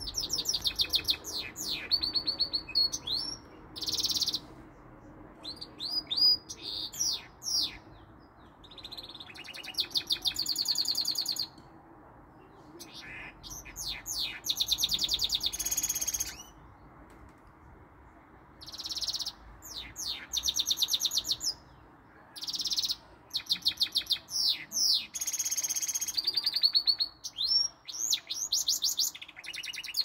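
Goldfinch mule (goldfinch × canary hybrid) singing, with some canary notes mixed in. The song comes in repeated phrases of fast trills, rolls and sliding whistles, with short pauses between them.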